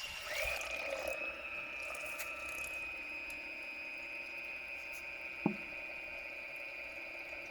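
Portable mini washing machine running, its small motor giving a steady high whine that rises and settles in the first half second, with water sloshing in the tub. A single short click about five and a half seconds in.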